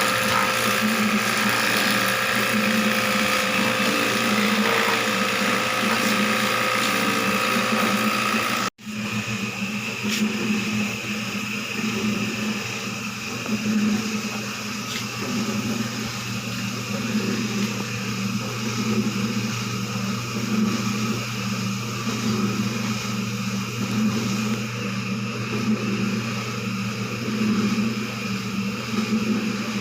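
A small motor running steadily with a low hum and a hiss. It breaks off for an instant about nine seconds in and runs on.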